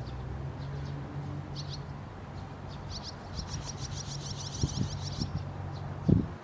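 Fledgling barn swallows giving begging calls: scattered high chirps, then a rapid run of calls from about three to five seconds in, with wide-open gapes and fluttering wings. A steady low hum runs underneath, and a single low thump comes near the end.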